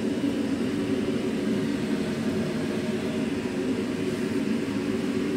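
Steady droning hum with a faint hiss over it, even and unchanging, like a machine running.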